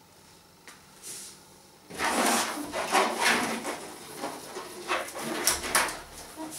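Inflated latex balloon rubbing and squeaking under the fingers as its neck is stretched and knotted, a run of scratchy strokes starting about two seconds in.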